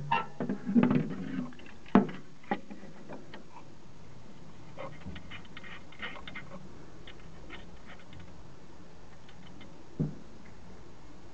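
Light clicks and taps of metal hardware being handled while a welder's bridge rectifier plate, with its nuts, studs and wire terminals, is fitted back in place, with a sharper knock about two seconds in and another near the end. Plucked-string music fades out in the first second or so.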